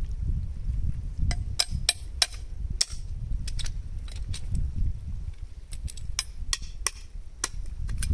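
Metal blade knocking and chipping at rock oysters to prise them off the shore rocks: sharp, irregular taps, about two a second. A low wind rumble sits underneath.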